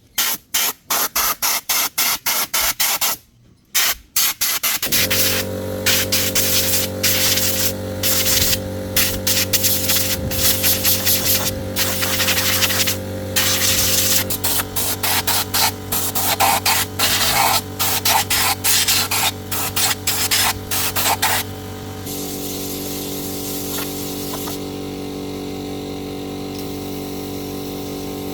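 Rapid short bursts of hissing spray, then from about five seconds in a motor starts and runs steadily with more bursts of spray over it; near the end the bursts stop and a steady hiss continues under the motor.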